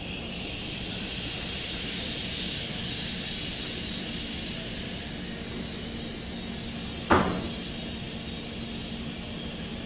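The Taoist liver healing sound: a long, soft 'shhh' exhaled slowly and held steady. A single sharp knock sounds about seven seconds in.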